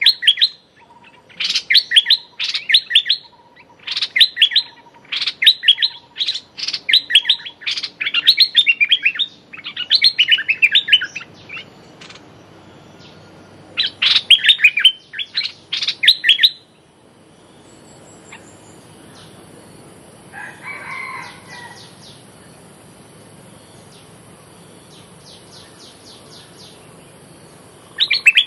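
Stripe-throated bulbul giving bursts of rapid chattering 'rik' calls, about one burst a second, which stop about two-thirds of the way through. After that only a faint steady high hiss and a few soft sounds remain.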